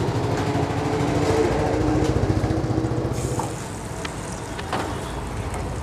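Traffic engine hum at first, then about three seconds in sliced onion starts sizzling in hot oil on a large flat griddle.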